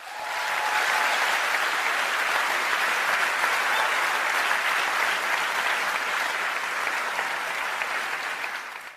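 Audience applause: dense, steady clapping that comes in at once and tapers off near the end.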